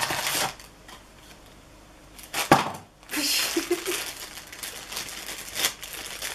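A blind box being opened: a sharp tearing crack about two and a half seconds in, then the crinkling of the foil blind bag from inside it as it is handled and pulled at.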